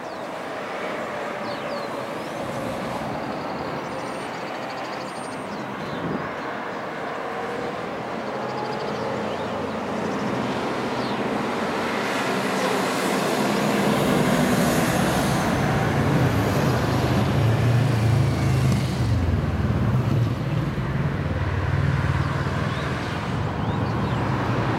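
Road traffic going by, with a steady noise of engines and tyres. About halfway through, the diesel engine of a Volvo truck hauling a shipping container grows louder and becomes the loudest sound as it passes close by.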